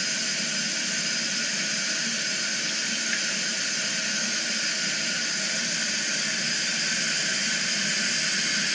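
Compressed air hissing steadily into a hyperbaric decompression chamber as it is pressurised for a simulated descent.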